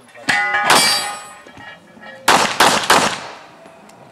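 Five pistol shots: two about half a second apart near the start, then three in quick succession a little after two seconds. After the first pair a steel target rings with a metallic clang.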